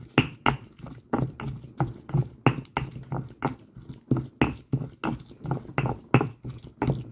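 Stone pestle knocking and grinding in a volcanic-stone molcajete, about three strokes a second, crushing cumin, cloves and salt into a paste.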